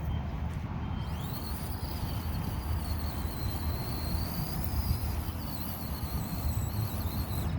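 Axial SCX24 micro crawler's small electric motor and gears whining at a high pitch as it drives. The whine rises about a second in, wavers near the end and stops, over a steady low rumble.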